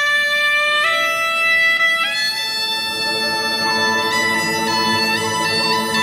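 Suona playing long held notes that step up in pitch about one and two seconds in, with a wavering ornament near the end. A sustained accompaniment comes in underneath after a couple of seconds.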